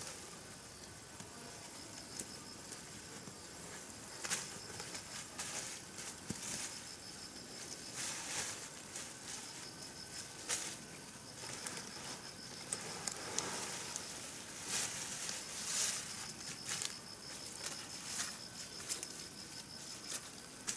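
Insects trilling on one high pitch, coming and going, with irregular close rustling and light clicks throughout.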